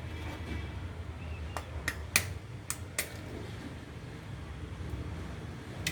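An egg being cracked into a bowl: a few sharp taps of the shell against the bowl, about five within a second and a half, a couple of seconds in. A low steady hum runs underneath.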